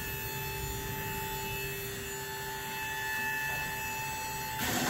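A steady electric hum with several steady tones, cut through near the end by a short burst of noise.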